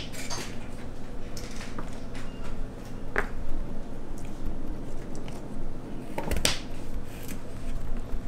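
Knife cutting carrots on a wooden cutting board: scattered taps and crunches, the sharpest about three seconds in and again near six and a half seconds, over a steady low hum.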